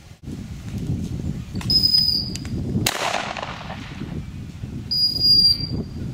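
A single gunshot about three seconds in, with a fading echo. It is framed by two short, flat, high-pitched dog-whistle blasts, one just before the shot and one about five seconds in, over low rumbling noise.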